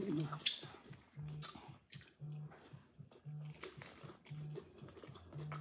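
Hard corn taco shells crunching as they are bitten and chewed, with several sharp crunches that are loudest near the start. A faint low tone pulses underneath about once a second.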